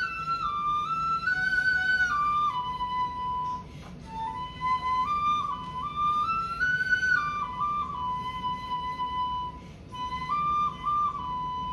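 Shinobue, the Japanese bamboo transverse flute, playing a slow melody on its own: held notes stepping down and back up, settling on a long low note, with two short breaks between phrases.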